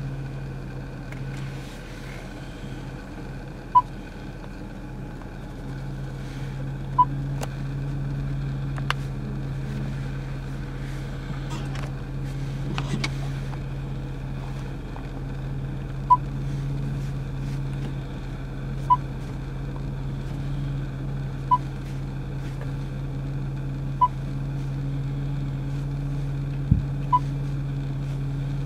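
Range Rover touchscreen infotainment system beeping once for each menu button pressed: about seven short, high beeps a few seconds apart. A steady low hum runs underneath.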